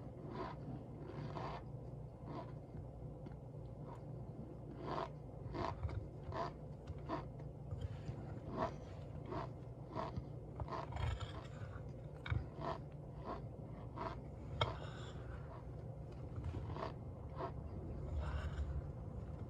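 Cornstarch crunching and squeaking as it is compressed: a run of short, irregular crunches, one or two a second, over a steady low hum.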